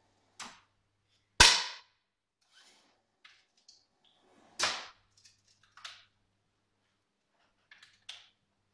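Two shots from match air rifles, sharp cracks with a short ringing tail: the louder one about a second and a half in, the next about three seconds later. Fainter clicks and clacks of rifle and equipment handling fall between and after them.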